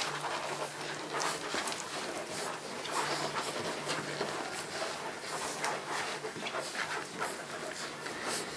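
Litter of Dalmatian puppies suckling from their mother, a busy run of small wet smacks and clicks.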